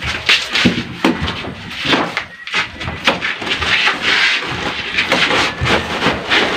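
Irregular knocks of a hammer on the wood of a window frame being fitted, a few blows a second with uneven gaps, mixed with wood clattering.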